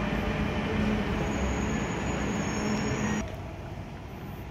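Dubai Metro train running at the platform behind the glass screen doors: a dense rumble with a steady hum, joined by a thin high whine about a second in. It stops abruptly about three seconds in, leaving quieter background noise.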